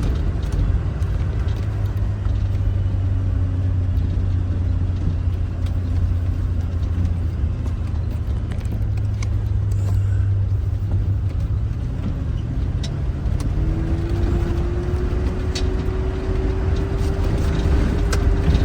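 Land Rover driving slowly on a rough dirt track: a steady low engine drone with scattered knocks and rattles. Past the middle a whine comes in, rising slightly and then holding.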